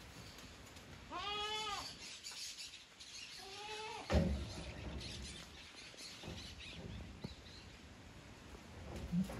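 Goat bleating: two short calls that rise and then fall in pitch, about a second in and again around three and a half seconds in. A sharp thump follows just after the second call.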